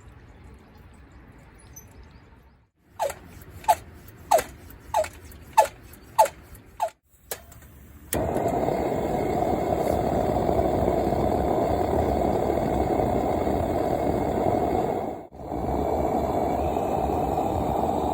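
Seven quick clicking strokes, each with a short falling squeak, then a pressurised camp flame catching and hissing steadily, cutting out briefly near the end before hissing on.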